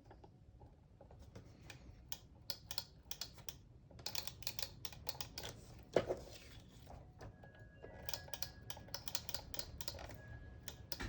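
Light, irregular clicks and taps of card and paper being handled and pressed down on a tabletop, with one sharper tap about six seconds in. A faint steady low hum runs underneath.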